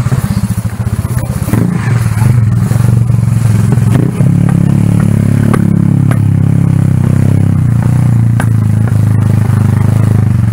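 Small motorcycle engine running steadily as the bike rides along, heard from on the bike, with a brief dip in level about four seconds in.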